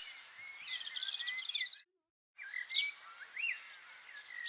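Small birds chirping and twittering in quick short calls, with a fast trill about a second in. The sound drops out to dead silence for about half a second near the middle, then the chirping resumes.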